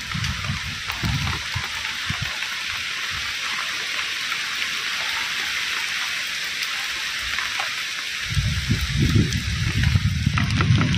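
Heavy rain falling in a steady hiss. A low rumble fades out early on and rises again about eight seconds in, running louder through the end.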